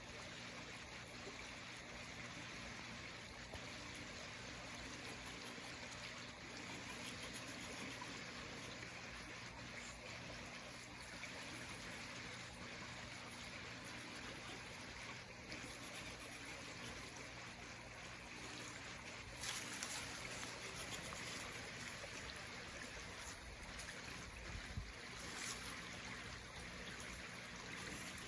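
Small stream trickling steadily, with a few short knocks about two-thirds of the way through.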